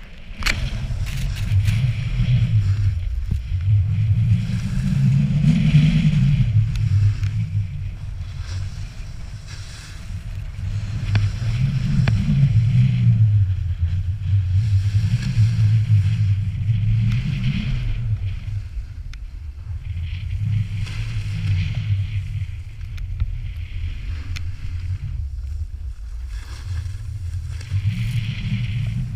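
Snowboard sliding and carving on packed snow: a scraping hiss from the edges that swells and fades with each turn, over a heavy low rumble of wind on the camera's microphone. There are a few knocks right at the start.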